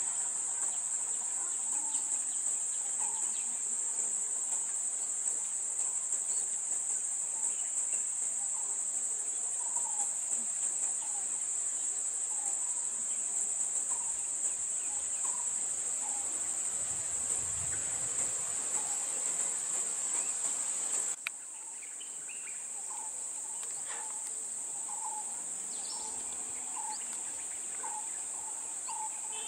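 Steady high-pitched insect chorus, dropping in level about two-thirds of the way through, with faint repeated chirps beneath it.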